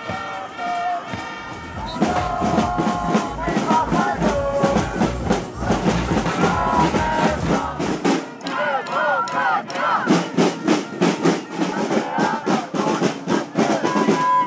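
A crowd of protesters chanting and shouting over a steady beat of marching drums.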